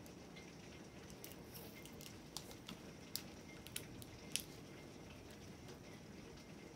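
Faint clicks and ticks of small fingers picking at the plastic wrapping of an LOL Surprise Lil Sisters ball, scattered through the middle with the sharpest one about four seconds in, over a low steady hiss.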